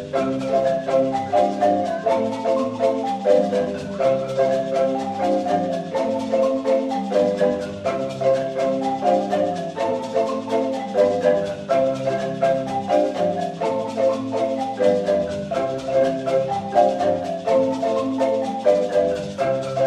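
Ensemble of wooden marimbas struck with mallets, several players together playing a fast, steady repeating pattern of many overlapping notes with no break.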